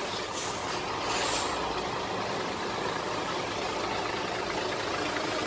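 Steady road and engine noise of a Daihatsu Gran Max van on the move, heard from inside the cab.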